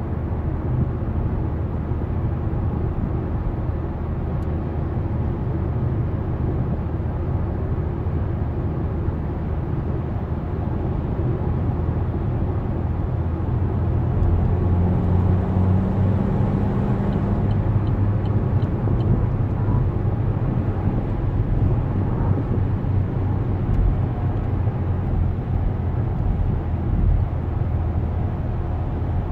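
Steady engine, tyre and wind noise inside the cabin of an Opel Insignia with the 2.0-litre A20DTH diesel, held in fourth gear at about 95 km/h. It gets a little louder about halfway through, with a brief hum soon after.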